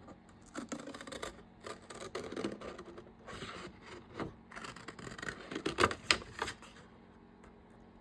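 Paper and small craft items being handled: soft rustling with scattered light clicks and taps, the sharpest clicks about six seconds in.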